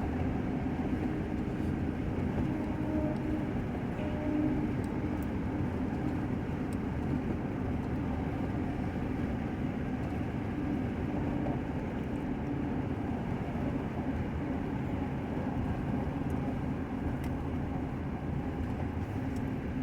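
Steady road and engine drone inside a moving car's cabin, with a low hum running under it.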